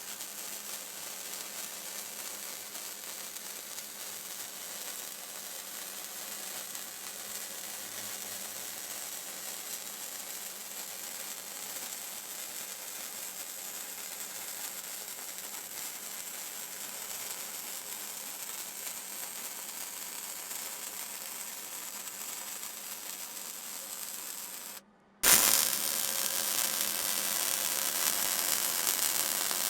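Electric arc welding along the seams of a sheet-steel stove body: a steady hiss. It drops out briefly about 25 seconds in and comes back louder.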